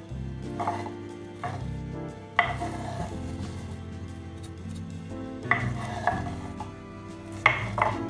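A knife sweeping sliced apple sticks off a wooden cutting board into a ceramic bowl, with three sharp knocks as the board and knife strike the bowl. Soft background music plays underneath.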